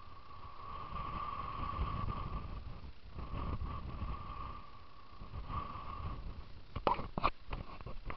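Wind buffeting the camera microphone in an uneven low rumble, with a thin steady whine through the first six seconds and two sharp handling knocks about seven seconds in as the camera is moved.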